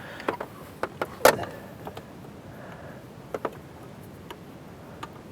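Scattered sharp clicks and knocks of a new plastic RV holding-tank gate valve and its parts being handled and fitted: the loudest knock comes about a second in, and a quick pair follows past the middle.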